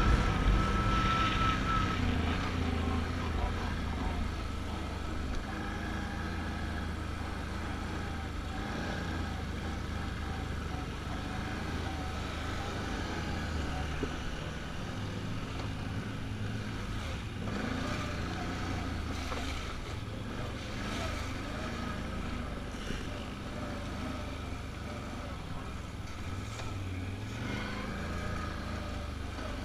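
Can-Am Outlander ATV engine running as it rides a dirt trail, its note shifting with the throttle. It is louder for the first couple of seconds, then settles to a steady cruise, with wind buffeting the helmet-mounted microphone.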